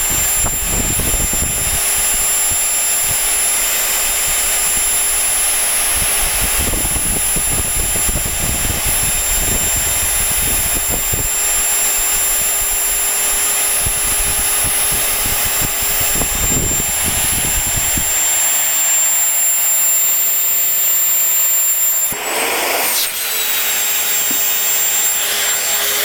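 Bare 240-volt vacuum cleaner motor running flat out: a loud, steady high-pitched whine over rushing fan air. A low rumble runs under it until about 18 seconds in, and about 22 seconds in the whine briefly rises and falls in pitch.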